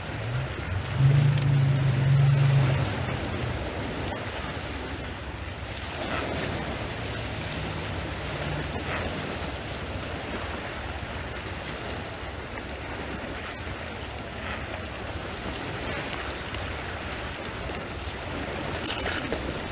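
Small waves washing onto a pebble shore, with wind on the microphone. A louder low hum comes in about a second in and lasts some two seconds, then returns more faintly about halfway through.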